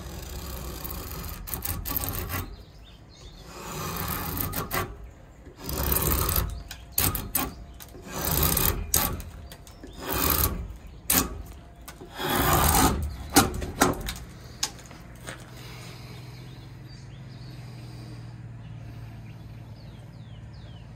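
A Kailash Blades kukri drawn along a pine rail in draw cuts: about seven or eight separate scraping, shaving strokes of the blade biting into the wood over the first fourteen seconds, then the cutting stops.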